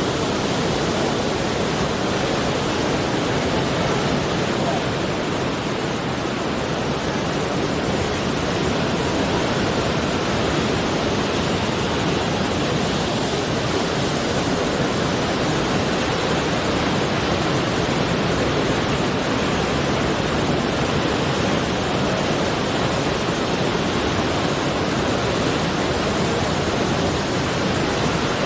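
Steady rushing water, an even, unchanging noise.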